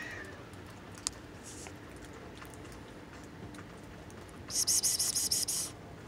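A cat's meow trailing off at the very start, then low background with a single click about a second in. Near the end comes about a second of rapid, high-pitched rhythmic ticking, the loudest sound here, from an unclear source.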